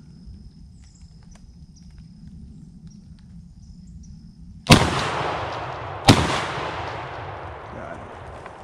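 Two gunshots from a hunting gun about a second and a half apart, each ringing out in a long echo that fades over a few seconds.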